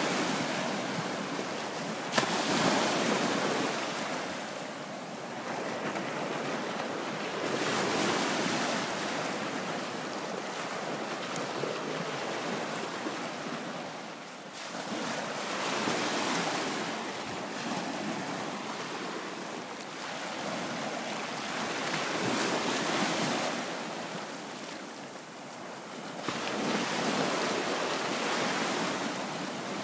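Small bay waves washing up and draining back over a sandy beach, the surf noise swelling and falling every several seconds. A single sharp click about two seconds in.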